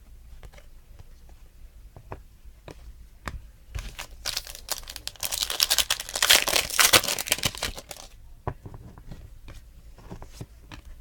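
A trading card pack torn open by hand: its wrapper crinkling and tearing for about four seconds in the middle, with light clicks of cards being handled before and after.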